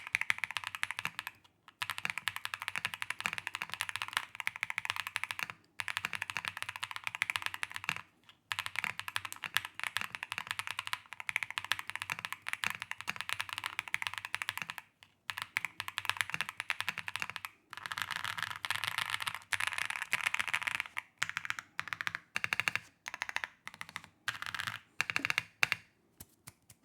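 Mechanical keyboard fitted with WING TREE YUNIE linear switches being typed on fast, in long runs of rapid keystrokes broken by short pauses. Near the end the typing slows to separate key presses, about two a second.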